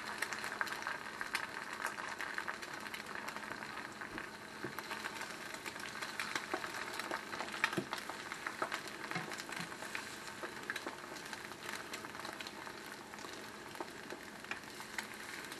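Two eggs frying in a nonstick skillet: a steady sizzle with a crackle of small pops, with a spatula touching the pan now and then.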